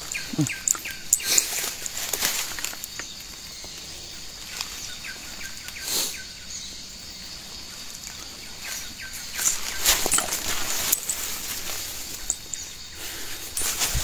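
Leafy branches and undergrowth rustling, with a scatter of sharp snaps and crackles, as an Asian elephant pulls at the vegetation close by. A steady high-pitched drone from the forest runs behind.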